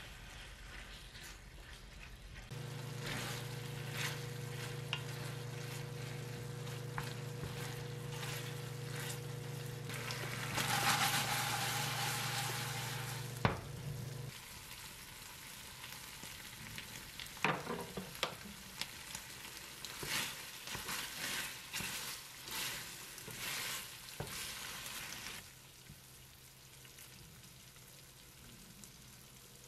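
Boneless chicken feet in red chili sauce sizzling in a frying pan while a wooden spatula stirs and scrapes them around. A steady low hum runs under the first half and stops about halfway, just after a sharp knock against the pan; irregular scraping follows.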